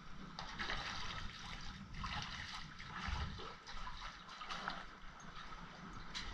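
Water splashing in repeated surges as a school of fish churns the surface beside the dock, a hooked crappie among them.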